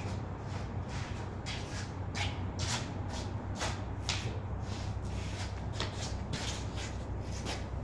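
Shoes scuffing and shuffling on paving in short irregular scrapes as a person steps and turns about, over a steady low hum.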